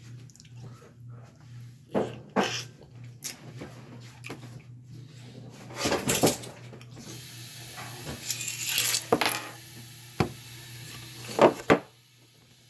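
Eating a seafood boil by hand: scattered sharp cracks and clicks of shells being broken and handled, with wet mouth and smacking sounds and a stretch of rustling in the middle, over a faint steady low hum.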